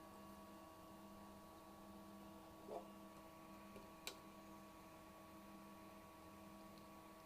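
Near silence with a faint steady electrical hum; a single sharp click about four seconds in.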